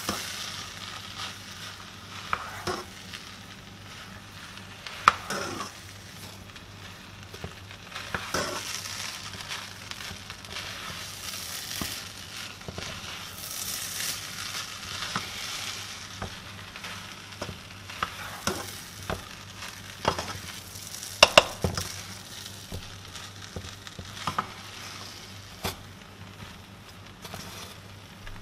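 Spatula stirring and scraping fried rice around a hot pan, with the rice sizzling. Short scraping strokes come one after another, with a few sharp clacks of the spatula against the pan, the loudest about five seconds in and again just past twenty seconds.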